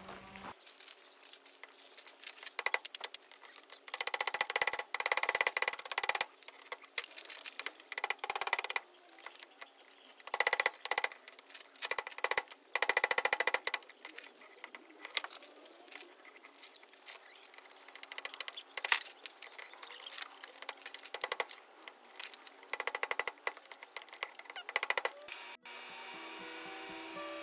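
Hand hammer blows on hot steel held on a steel anvil, a quick run of ringing strikes, coming in bursts of a second or two with short pauses between. Background music comes in near the end.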